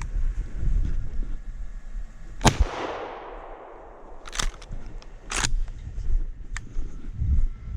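A single gunshot about two and a half seconds in, its report echoing away over a second or so, followed by a few short, sharp knocks.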